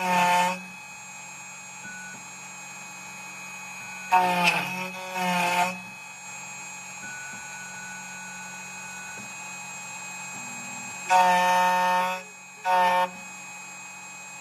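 Electronic buzzer on a CNC key cutting machine sounding in horn-like two-part blasts, three times, over a steady low hum.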